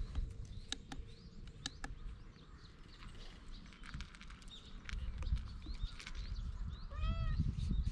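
Footsteps crunching irregularly on a gravel path, with small birds chirping in the background. About seven seconds in, a single short pitched call sounds.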